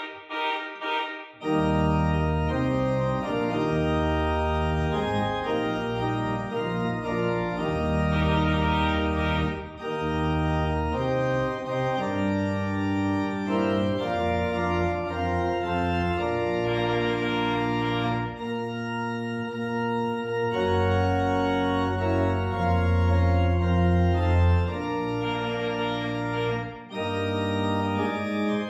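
Church organ played with both hands in slow, sustained chords. A deep pedal bass comes in about a second and a half in and drops out for a couple of seconds about two-thirds of the way through.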